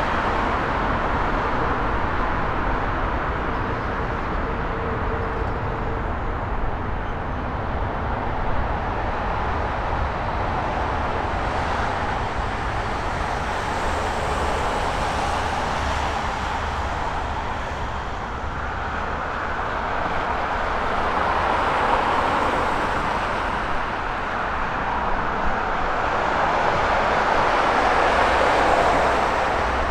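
Jet airliner engine noise: a steady rushing sound over a low rumble that grows louder in the last third.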